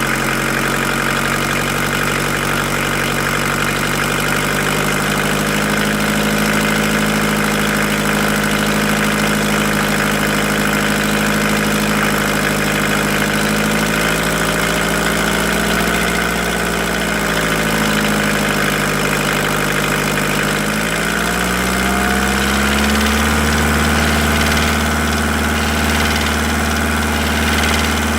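VW T4 1.9 naturally aspirated four-cylinder diesel running, first at a steady low speed, then with the revs raised and held higher about three quarters of the way through. It carries the clatter that the owner first blamed on hydraulic lifters and that a teardown traced to a knocking piston pin, a fault needing a rebuild.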